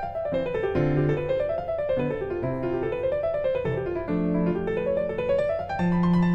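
Background piano music: runs of notes rising and falling over held bass notes.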